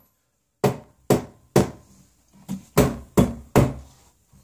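Rubber face of a mallet tapping a metal shelf bracket, seating it onto a glass bathroom shelf: about seven sharp taps, roughly two a second, a few louder than the rest.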